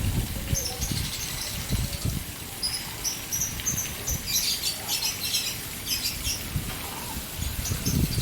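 Caged birds chirping in short high bursts, busiest between about three and five seconds in, over the splashing of a water fountain.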